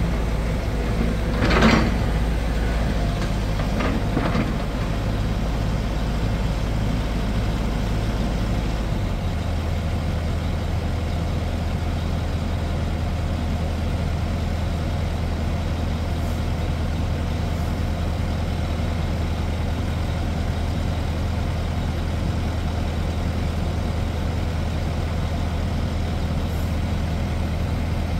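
Tracked hydraulic excavator's diesel engine running steadily during demolition, with a loud crash about two seconds in and another about four seconds in. The engine note shifts about nine seconds in.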